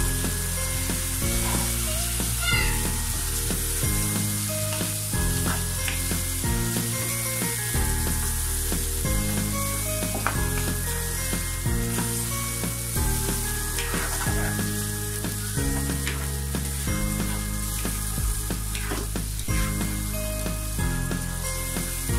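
Beef chunks sizzling in hot oil and spice paste in a nonstick pan, with a wooden spatula scraping and stirring them, over background music.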